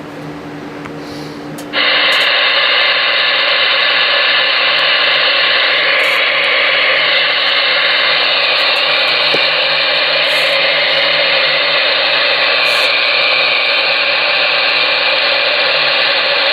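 Steady static hiss from a Galaxy DX-98VHP ten-meter radio's receiver through its speaker, switching on suddenly about two seconds in. It is open-channel noise with no station coming through.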